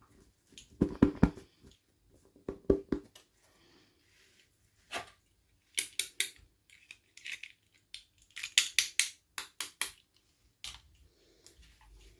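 Small plastic toy pieces and packaging handled up close: irregular bursts of sharp clicks, taps and rustles, the loudest cluster about a second in and another run of crisp clicks near the end.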